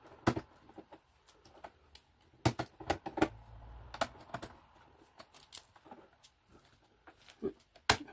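Irregular sharp plastic clicks and small knocks as the blue retaining clips are worked off the PTFE tube couplers on the back of an Anycubic ACE Pro filament box, with a cluster of clicks a few seconds in and a sharp click near the end.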